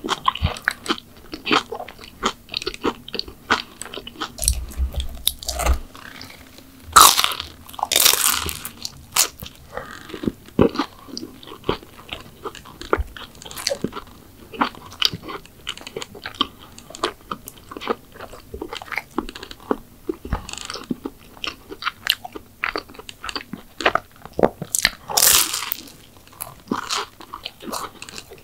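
Close-miked eating of McDonald's sweets: repeated crisp bites and wet chewing, with louder crunches about 7 and 9 seconds in and again about 25 seconds in.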